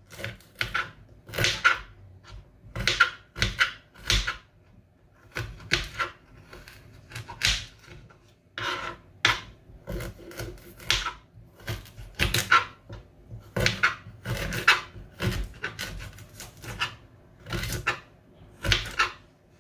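Kitchen knife chopping fresh ginger into small pieces on a cutting board: a long run of irregular sharp chops, about one or two a second.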